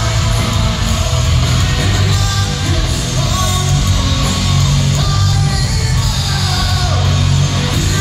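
Heavy metal band playing live at full arena volume: distorted electric guitars over heavy bass and drums, heard from within the crowd.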